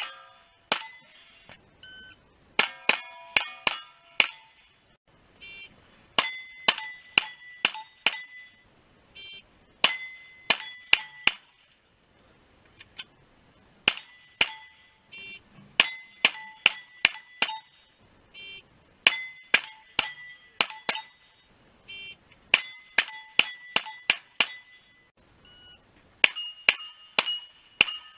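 Pistol-caliber carbine fired in quick strings of about five shots, each shot followed by the ring of a steel target plate being hit, a new string every few seconds. A shot timer's short beep starts the strings.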